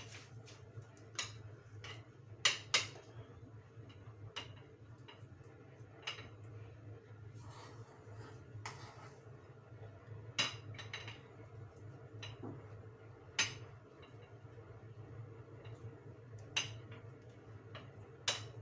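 A spoon clinking and scraping against a bowl and a burger mould as chickpea mixture is spooned in and shaped: scattered sharp taps, about ten in all, with a short soft scrape around the middle. A steady low hum runs underneath.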